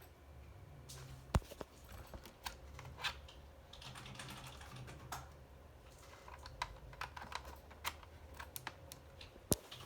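Irregular taps and clicks of typing on a laptop keyboard, with two sharper clicks, one about a second and a half in and one near the end.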